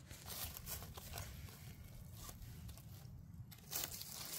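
Faint rustling and crunching of dry leaf litter and moss as gloved hands handle mushrooms and a knife, with scattered small clicks and a louder rustle near the end.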